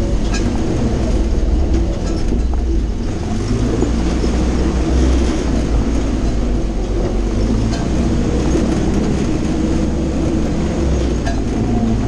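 Willys flatfender Jeep engine running steadily at low trail speed, a constant low rumble, with occasional light clicks and rattles from the body over the rocks.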